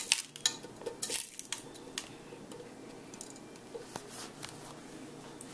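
Buttered graham cracker crumbs tipped from a nonstick pot into an aluminium foil pie tin: a few light clinks and scrapes in the first two seconds, then faint scattered ticks.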